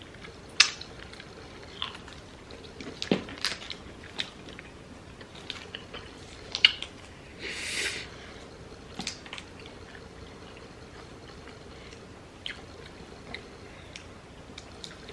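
Eating by hand: spicy boiled shrimp being peeled and chewed. There are scattered sharp clicks and cracks of shell, and a brief crackling rustle about halfway through.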